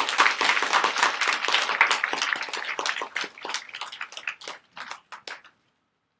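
Audience applauding: a dense round of clapping that thins out to a few scattered claps and stops about five and a half seconds in.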